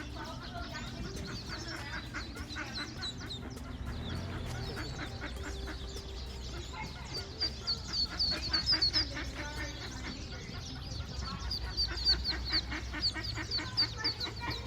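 A brood of mallard ducklings peeping: many short, high peeps overlapping, growing louder and busier about halfway through.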